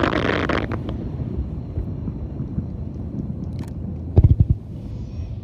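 Fireworks display: crackling shells fizz out in the first second over a rolling low rumble of echoing bursts, then a quick cluster of sharp bangs about four seconds in.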